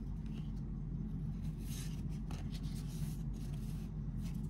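Baseball trading cards sliding and rubbing against one another as they are flipped through by hand: a few short, soft swishes over a steady low hum.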